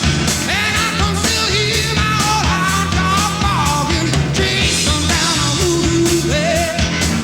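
A rock record playing: a full band with a steady beat and a voice singing over it.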